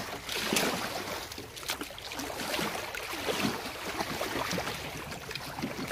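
Shallow seawater lapping and sloshing around a small boat's hull as it sits on its trailer at the water's edge, with scattered small knocks and splashes.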